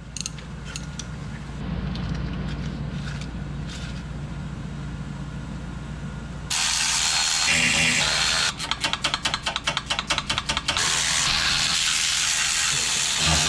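Cordless electric ratchet unscrewing oil pan bolts. A few faint clicks at first, then the tool starts about halfway in and runs in a steady whir, breaks into a rapid train of clicks for about two seconds, and runs steadily again.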